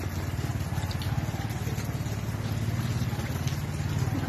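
Motorcycle engine running steadily at low revs, a fast, even low pulsing.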